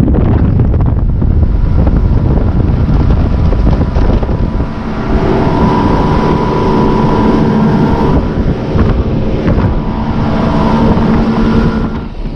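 A motorboat's engine running under way, with wind buffeting the microphone. About halfway through a steady engine drone comes out clearly above the rush.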